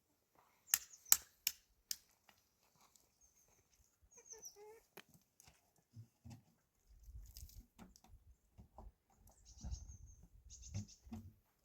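A few sharp knocks about a second in, the loudest sounds here, then small birds chirping now and then with short falling notes. There is a brief pitched animal call about four seconds in, and low rumbling noise in the second half.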